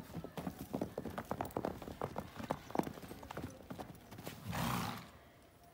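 Horses' hooves striking packed dry dirt as two horses trot around a yard: quick, irregular hoofbeats that thin out about three and a half seconds in. A short, noisy blast follows about a second later.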